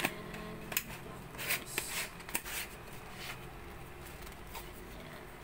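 Handling noise from a plastic bicycle water bottle: light plastic rustles and a series of short clicks as the bottle and its clear plastic dust cap are turned and fitted in the hands, busiest in the first couple of seconds.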